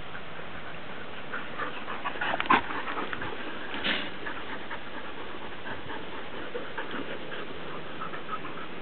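A pack of huskies panting and moving about, with a few brief yelps; the loudest comes about two and a half seconds in and another just before four seconds.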